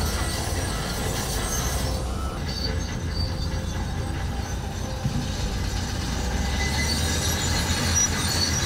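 Heavy diesel machinery running: a Volvo motor grader and a dump truck give a steady low engine rumble under a noisy hiss, with scattered thin high squeaks.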